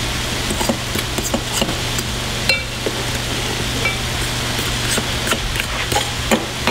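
Ground turkey sizzling in a cast iron skillet with a steady hiss, while a spoon scrapes and clinks against a ceramic bowl at scattered moments, stirring instant mashed potatoes mixed with boiling water.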